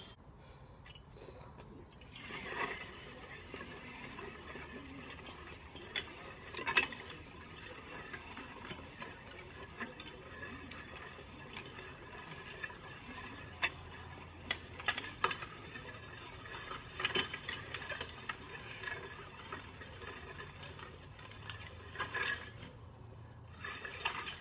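Weighted sled, loaded to 300 lb, dragged over wet asphalt: a continuous rough scraping grind that starts about two seconds in, with sharp clicks and knocks scattered through it.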